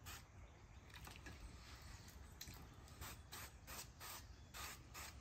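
Aerosol avocado-oil spray can giving a run of short, faint hisses as oil is sprayed onto raw turkey breast.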